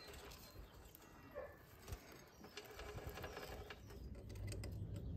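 Faint clicks and light metallic rattles of a new motorcycle drive chain being handled and fed around the rear sprocket by hand. A low steady hum comes up from about halfway.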